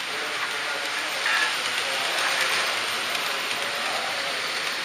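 HO scale model trains running on the layout: a steady rushing noise of small wheels rolling on metal rails.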